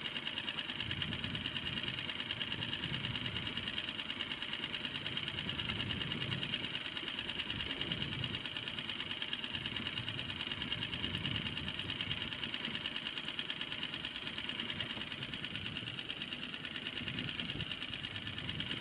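Outboard motor idling steadily, with a fast, even beat.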